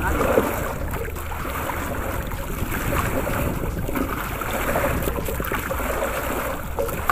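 Wind buffeting the microphone and choppy sea water splashing against a small outrigger boat, a steady rushing noise with a low rumble.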